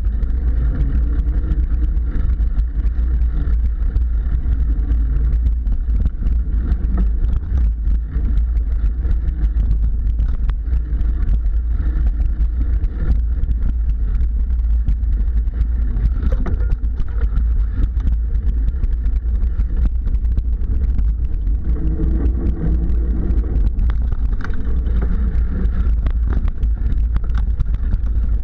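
Mountain bike ridden over a dirt singletrack, heard as a steady low rumble of wind buffeting the microphone and tyres on the ground, with scattered rattles and knocks from the bike over bumps and roots.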